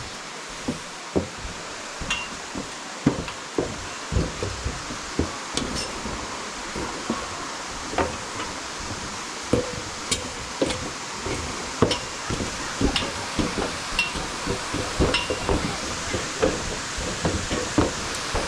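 Footsteps going down a hard trail, with irregular clicks and knocks about one or two a second, over a steady hiss.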